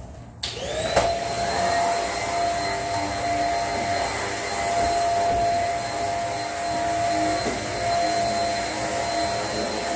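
Upright vacuum cleaner switched on about a second in with a click. Its motor spins up to a steady high whine and keeps running while it is pushed over the floor.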